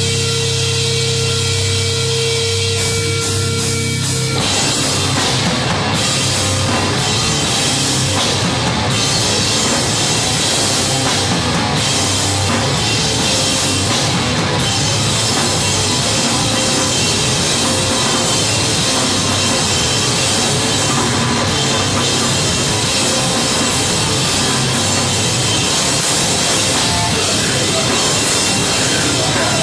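Hardcore punk band playing live and loud through a club PA. A single steady ringing tone from the amps holds for the first few seconds, then the full band comes in with distorted guitars and pounding drums about four seconds in.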